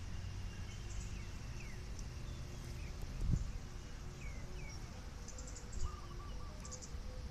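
Sanu, the bow hummer on a Thai Isan kite, droning a faint steady tone in strong wind; its pitch steps up about five seconds in. Wind rumble sits underneath, with scattered bird chirps and insect ticks.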